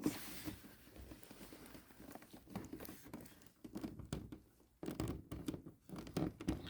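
Faint rustling and scattered small clicks of cables and plugs being handled and moved about.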